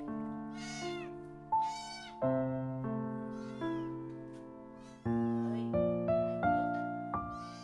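A kitten meowing in high, repeated calls, loudest twice in the first two seconds and again near the end, with fainter meows between, over background music.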